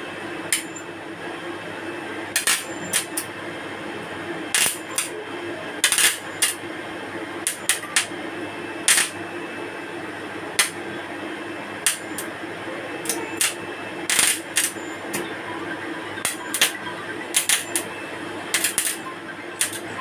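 Stick (arc) welding machine humming steadily, with irregular sharp crackles and pops from the welding arc as the electrode is struck and burns.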